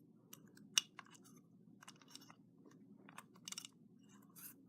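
Faint scattered clicks and small rattles of a key and the key cylinder being worked in a Schlage BE365 keypad deadbolt, with one sharper click about a second in and a few quick clicks near the end.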